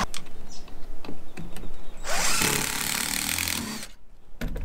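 Power drill driving a screw into a composite deck board, running for about a second and a half partway through, with a few knocks from handling the tool and board before it.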